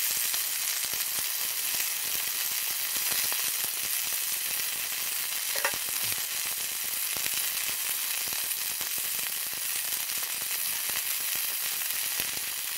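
Fillet steak sizzling steadily in a frying pan set on campfire coals.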